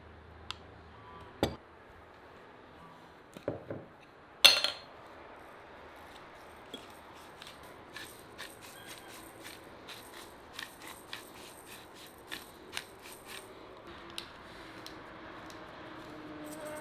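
A spoon clinks and knocks against a plate and a clay bowl a few times, the loudest knock about four and a half seconds in. Then a hand pepper mill grinds with a run of quick crackling clicks, a few a second, for about eight seconds.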